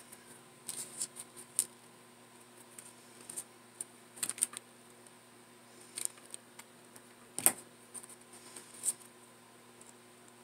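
Green satin ribbon petals being handled by fingers: scattered small rustles and clicks of the slick fabric, the loudest about seven and a half seconds in, over a faint steady hum.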